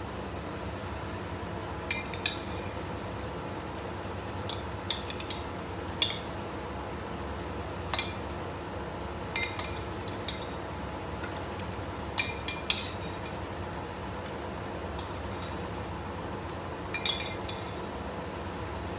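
Light clinks and taps of kitchenware, about fifteen in small clusters, as tomato, onion and garlic pieces are dropped into a pot of water, over a steady background hum.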